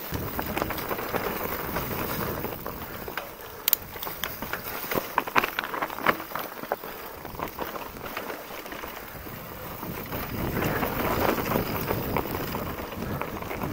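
Mountain bike rolling fast downhill on a dirt trail strewn with dry leaves: a steady hiss of tyres and wind on the microphone, broken by sharp rattles and knocks as the bike hits bumps, most of them around the middle. The noise drops for a few seconds, then rises again near the end.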